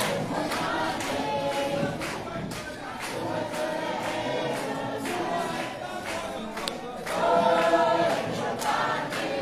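A group of voices singing together, getting louder about seven seconds in.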